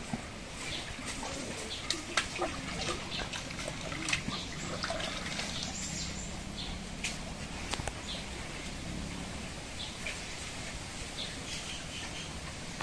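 Small birds chirping in short, scattered calls, with occasional water splashes and sharp knocks as a metal pot is dipped into a shallow stream.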